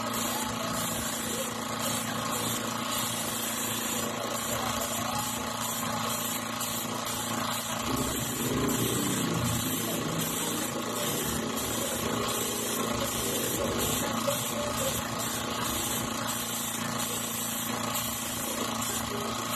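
Small air compressor feeding an airbrush, running with a steady mechanical hum and a hiss of air.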